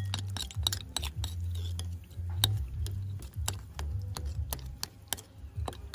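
Metal spoon clicking and scraping against a bowl in quick, irregular taps while mashing tamarind pulp in warm water, over a steady low hum.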